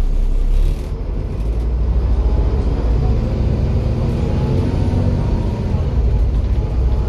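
Volvo B7 bus's diesel engine running, a steady low rumble with a faint turbo whistle gliding in pitch around the middle. A hiss sounds during the first second.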